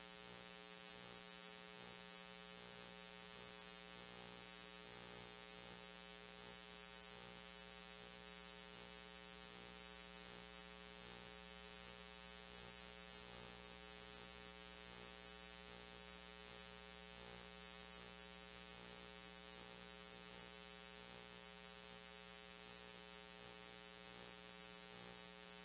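Near silence: a faint, steady electrical hum and buzz on the weather-radio audio, dead air between broadcast messages.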